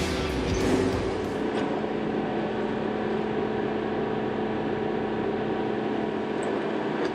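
Jeep Grand Cherokee Trailhawk running at a steady low speed, an even engine hum that holds one pitch, with a few faint knocks in the first second or so.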